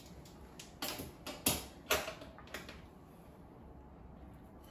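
Cutlery being handled: a knife and fork clicking and clinking against a ceramic plate, about five light clicks in the first two and a half seconds, then only quiet room tone.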